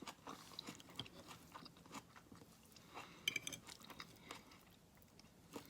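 A person chewing food, faint, with small mouth clicks scattered through.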